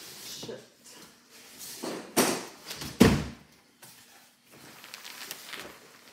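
Cardboard boxes scraping and rustling as an outer shipping carton is slid up off a boxed product, with two hard thumps about two and three seconds in, the second the loudest.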